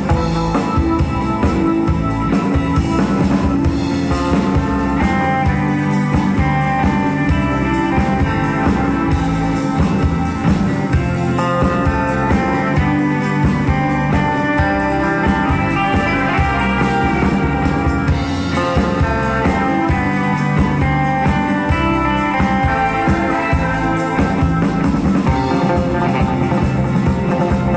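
Live band playing an instrumental rock tune: a Stratocaster-style electric guitar carries the melody over a second guitar and a steady drum beat.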